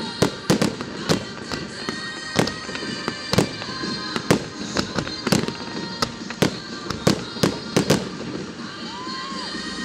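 Fireworks display: an irregular string of sharp bangs and crackles from bursting shells, two or three a second.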